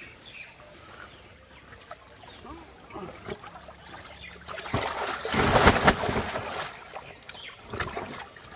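A large fish thrashing in shallow water in a tarp-lined tank, with small splashes and drips at first and a loud burst of splashing lasting a couple of seconds about halfway through, then another splash near the end.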